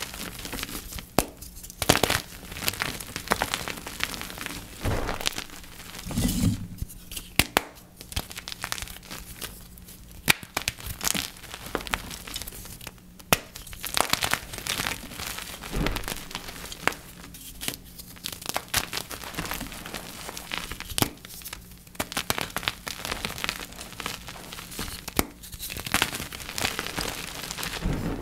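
Blocks of gym chalk (magnesium carbonate) being crushed and crumbled by hand, a dense, irregular crunching with many sharp cracks.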